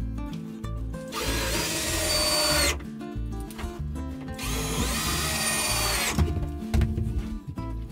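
Cordless drill running in two bursts of about two seconds each, driving screws to fasten boards to the wall framing, over background music.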